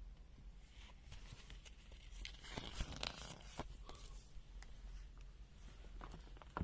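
Faint handling noises: scattered light clicks and brief rustling, busiest between about one and four seconds in.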